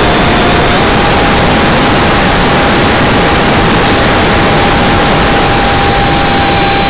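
Electric ducted-fan motor of a 70mm RC F-18 jet running at flight power, heard from onboard: a steady high whine over a loud rush of air. The whine steps up slightly in pitch just under a second in.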